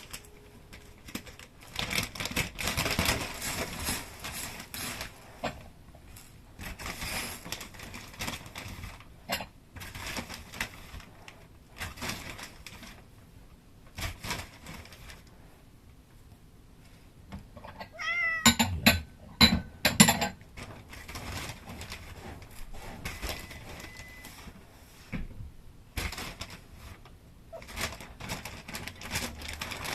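Cat meowing: a quick run of several calls about two-thirds of the way in. Scattered rustling and light knocks come and go around them.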